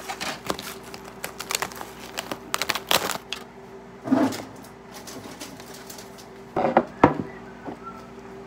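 Irregular clicks and knocks, several close together in the first few seconds. Louder knocks come about four seconds in and again around seven seconds in. A steady low hum runs underneath.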